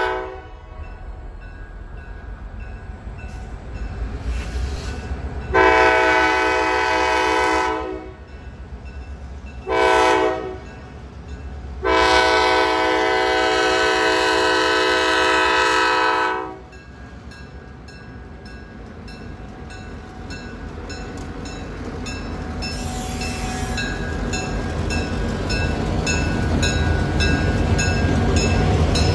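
Diesel freight locomotive horn blowing for a grade crossing: the tail of one blast at the start, then a long, a short and a long blast, with the crossing bell ringing steadily throughout. After the horn stops, the rumble of the locomotive's engine and wheels grows steadily louder as it reaches and passes the crossing.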